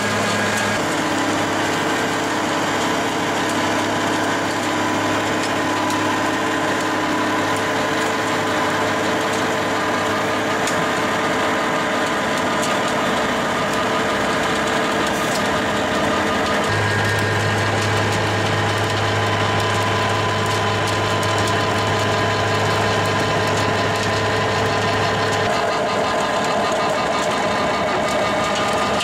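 JCB tractor powering an FAE mulcher/tiller rotor as it works soil and shreds woody debris: a loud, steady engine and rotor hum over a dense grinding noise, its low pitch changing abruptly twice, about 17 and 25 seconds in.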